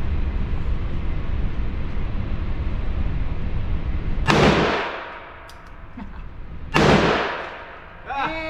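Two shots from a stainless Bond Arms two-barrel derringer firing .327 Federal, about two and a half seconds apart, each ringing off the concrete walls of an indoor range. Before the shots there is a steady low rumble.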